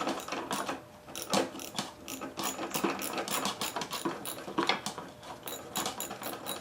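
Rapid, irregular metallic clicking and rattling of a hand tool working loose the float bowl on a Briggs & Stratton Quantum engine's carburetor.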